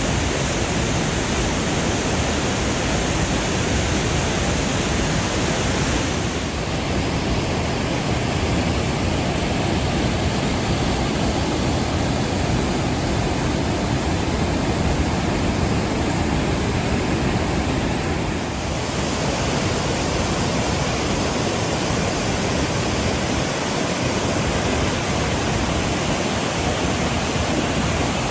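Steady, loud rushing of a waterfall, an unbroken roar of falling water. The hiss in the top end turns slightly duller for about twelve seconds in the middle.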